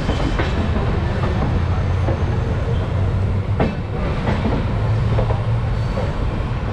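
The Sampoorna Kranti Express, an Indian Railways passenger train, running along the track. Its wheels give a steady low rumble with a few sharp clacks over the rail joints, heard from an open coach doorway.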